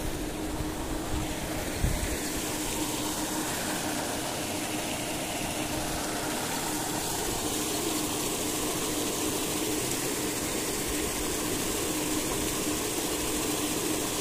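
Paddlewheel aerators churning shrimp-pond water: a steady splashing rush with a constant hum underneath. A brief low thump about two seconds in.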